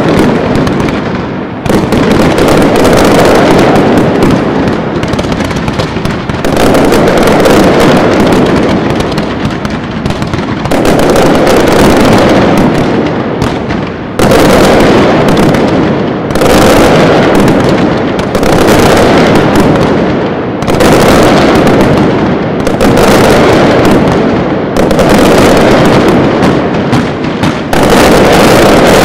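Fireworks display: a very loud, unbroken barrage of bangs, coming in waves that start abruptly every two to four seconds.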